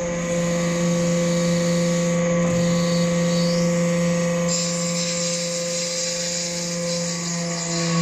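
Hydraulic power unit of a metal-chips briquetting press running with a steady whining hum. About halfway through, a high hiss joins in.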